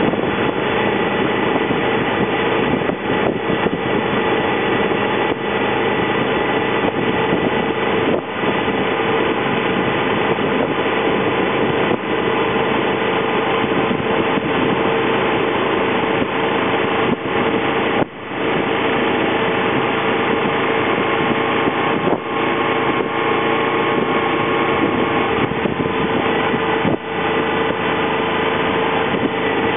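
2003 Honda VFR's V4 engine running at a steady cruise, heard from on the bike, with a steady hum and a few brief dips in level.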